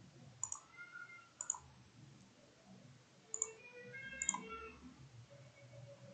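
Four sharp computer mouse clicks: two about a second apart, then two more about two seconds later, less than a second apart.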